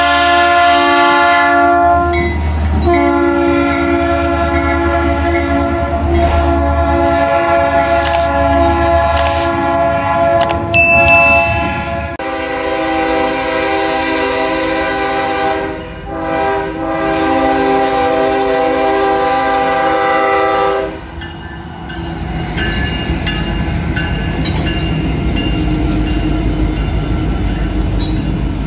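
Diesel freight locomotive air horn sounding long multi-note chords for about twenty seconds, with a short break and a change of chord partway. It then stops, and a Ferromex GE ES44AC locomotive and its train pass close by with a steady heavy rumble.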